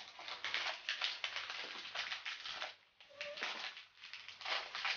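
Crinkling and tearing of a thin plastic snack-cake wrapper as it is pulled open by hand, a dense run of small crackles with a short pause about three seconds in.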